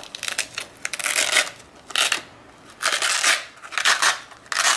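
Plastic packaging rustling and crinkling in short bursts about once a second as items are unwrapped.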